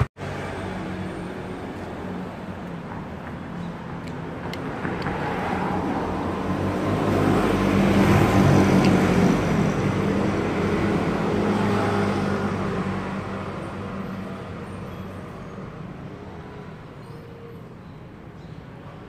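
Street traffic: a motor vehicle passes, its engine and road noise swelling to a peak about halfway through, then fading away.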